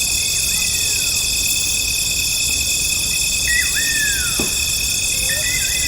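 Night jungle ambience: a dense, steady, high-pitched chorus of crickets and other insects, over which animal calls repeatedly whistle down in pitch, several overlapping near the end, with faint short low chirps between them.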